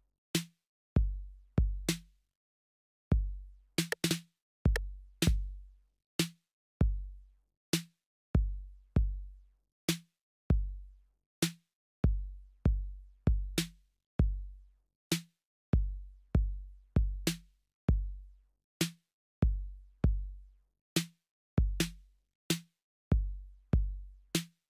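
TR-808 drum machine plugin playing a looped, programmed trap beat at 130 BPM. Deep 808 kicks with long low decays alternate with short, sharp hits in a repeating pattern.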